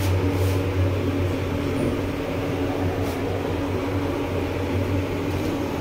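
Steady low hum of a passenger lift travelling upward, heard from inside the cabin.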